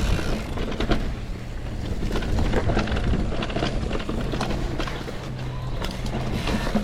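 Electric mountain bike riding over a dirt trail: a steady low motor and tyre hum with irregular clicks and rattles from the bike going over the rough ground.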